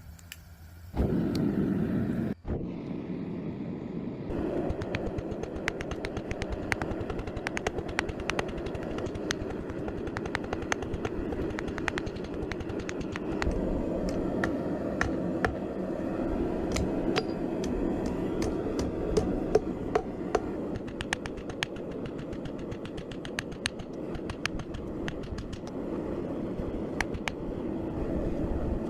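Blacksmith's forge fire burning with a steady rushing noise, with many short sharp clicks and taps over it.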